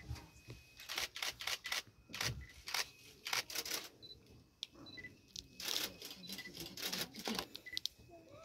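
Camera shutters clicking over and over, some as single shots and some in rapid bursts, with short faint high peeps here and there.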